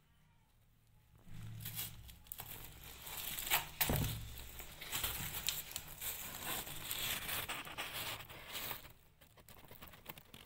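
Close, crinkly rustling of fur as newborn kittens nurse and shift against their mother cat. It starts a little over a second in, has a dull bump about four seconds in, and dies down near the end.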